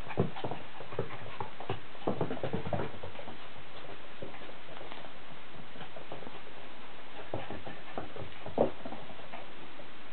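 A chihuahua playing with and shaking its soft toys, making scattered light clicks and knocks, busiest at first, with one louder knock near the end.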